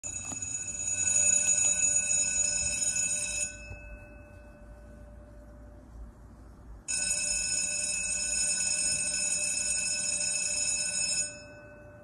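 Electric school bell ringing in two long rings of about three and a half and four seconds, with a pause of about three seconds between them. A fainter hum from the gong lingers through the pause and after the second ring.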